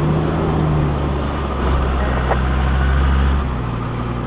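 Land Rover Discovery driving along a dirt four-wheel-drive track: steady engine drone under tyre and road noise, the engine note getting louder for a couple of seconds in the middle, then easing off.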